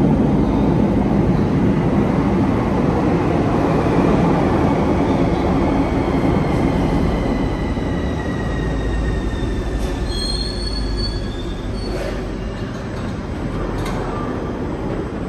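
CAF metro train running along the platform and slowing, with a heavy rumble of wheels on rail and a faint whine that falls slightly in pitch. Short high squeals come about ten seconds in and again near the end.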